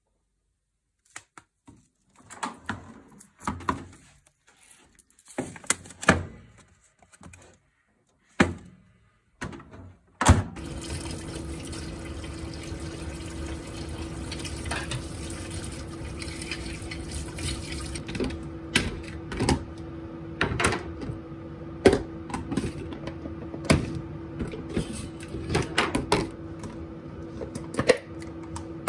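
Kitchen work sounds: scattered clicks and knocks of utensils and dishes, then from about ten seconds in a steady running noise with a hum, with more knocks over it.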